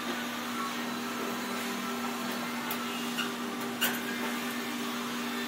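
A steady machine hum with a few faint clicks about three and four seconds in.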